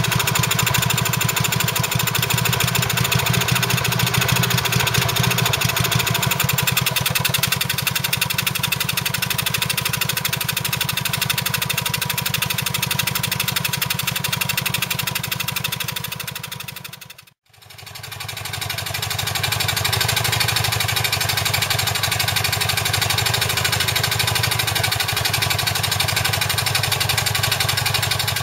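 Villiers WX-11 2.5 hp stationary engine driving a Mawdsley generator, running steadily with a rapid, even beat after a service with a corrected points gap and a new spark plug. About two-thirds of the way through, the sound dips out briefly and fades back in.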